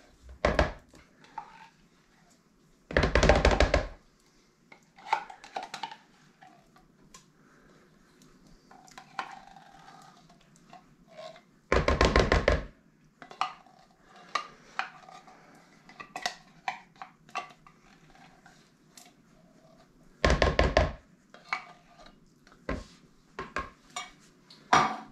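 A spoon scraping condensed cream soup out of metal cans into a plastic mixing bowl: three loud bouts of rapid scraping, about a second each, with light clinks and taps of the spoon and can against the bowl between them.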